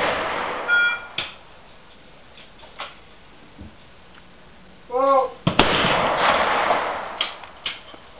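The echo of an earlier shotgun shot fades at the start. About five seconds in, a shooter's short shouted call is followed half a second later by a single shotgun shot at a clay target, with a long ringing echo, then a few smaller sharp cracks.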